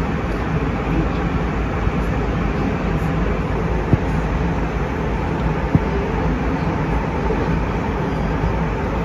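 Steady rush of an Airbus A320's cabin noise in flight, the engines and airflow heard from inside the cabin at a window seat. Two small ticks come about four and six seconds in.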